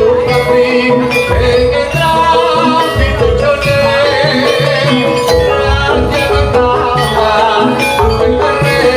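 Loud live jaranan (kuda lumping) ensemble music played through a sound system, with pitched percussion, a held drone and a wavering melody over a regular low drum beat about once a second.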